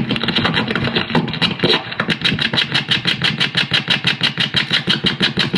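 Live electronic noise performance: a loud, dense noisy texture that about two seconds in turns into a fast, even pulsing of about six beats a second.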